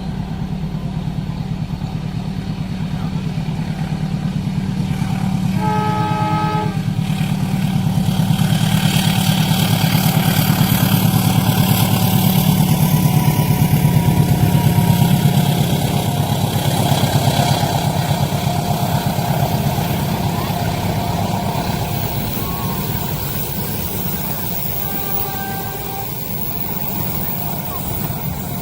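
A diesel-hauled train passing at speed: a steady low engine rumble, a short horn blast about six seconds in, then wheels running over the rails, loudest in the middle and easing off later, with a brief faint tone near the end.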